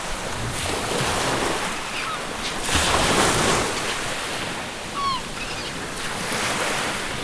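Ocean surf rushing and breaking, with the biggest wave surge about three seconds in. Seagulls give several short cries with a falling pitch, the clearest about five seconds in.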